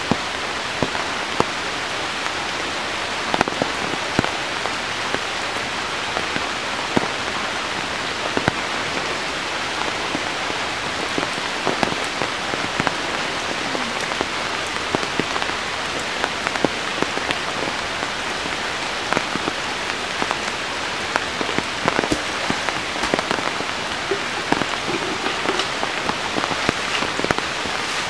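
Steady rain falling, with frequent sharp clicks of individual drops landing close by.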